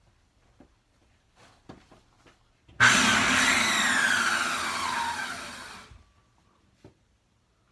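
Hoover vacuum cleaner's motor switched on for about three seconds. It starts abruptly with a whine that falls steadily in pitch, then dies away.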